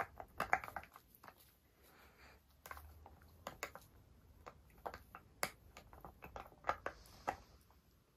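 A puppy gnawing a rubber spiky ball: faint, irregular clicks of teeth on rubber, a few a second.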